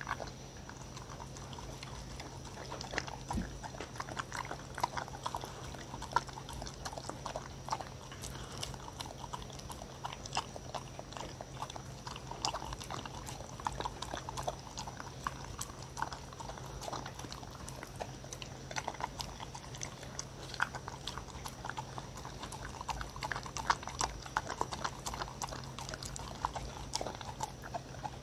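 A dog licking and lapping a blended banana-and-Korean-melon puree from a wooden bowl. It makes a continuous, uneven run of quick wet licks and tongue clicks against the bowl.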